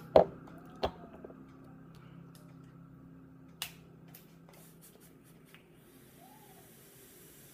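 Sharp knocks and small clicks of a plastic e-juice dropper bottle being handled and set down on a glass countertop: a loud knock just after the start, another under a second later and a third about three and a half seconds in. About six seconds in a faint, steady hiss starts as a box mod's atomizer fires during a draw.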